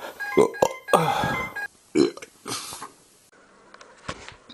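A quick run of loud human burps, the longest a drawn-out rough one about a second in, then quieter toward the end.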